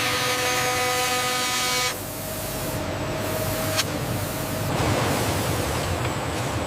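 Factory machinery running: a steady multi-tone whine over hiss and a low rumble, the whine stopping about two seconds in, leaving the hiss and rumble, with a single sharp click a little past the middle.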